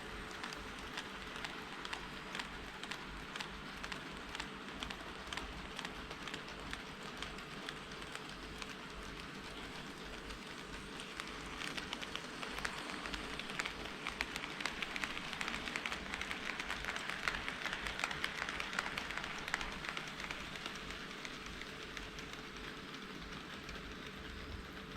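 HO-scale model trains running on KATO Unitrack: a dense, rapid clicking of wheels over the track, growing louder in the middle as a train passes close, then easing off.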